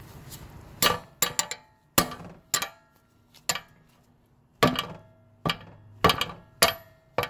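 Hammer blows on steel, about ten sharp ringing strikes at uneven intervals. They are striking to break loose the seized bolts holding a rear wheel hub assembly.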